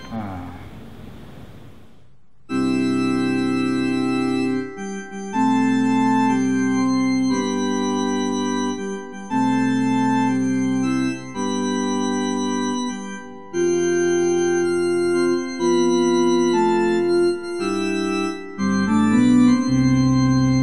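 Church Organ voice of a Kawai CA17 digital piano: sustained organ chords, each held a second or two and switching abruptly to the next, starting about two and a half seconds in.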